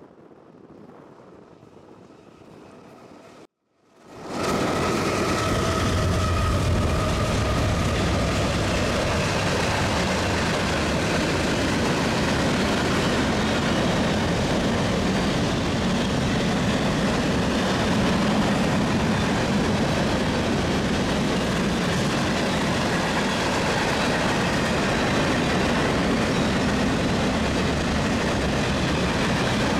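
Faint wind noise, then after a brief cut-out a freight train's boxcars start rolling past about four seconds in: a loud, steady rumble of steel wheels on the rails.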